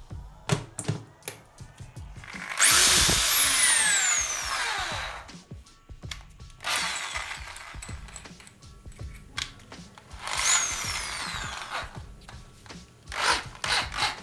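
Electric hand drill run in short bursts, boring bolt holes in a wooden workbench. Twice its whine rises sharply as the trigger is squeezed and then glides down as the motor slows, with clicks and knocks between the bursts.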